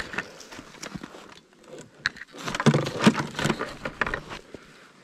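Clicks, knocks and rustling as ice-fishing gear, a hand ice auger among it, is handled and lifted off the snow. The noise is louder and rougher between about two and a half and three and a half seconds in.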